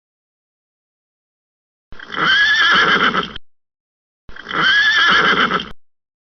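A horse whinnying twice, the same call repeated, each neigh about a second and a half long with a wavering pitch. The first starts about two seconds in, the second a second later.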